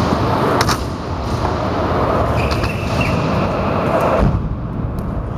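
Stunt scooter wheels rolling over a concrete skatepark floor, a steady rumble.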